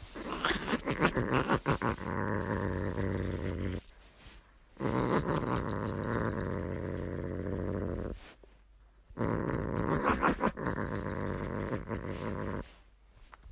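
A cat growling low and steadily during a fight with a rooster, in long stretches broken by sudden short gaps. There is a flurry of sharp scuffling clicks near the start and again about ten seconds in.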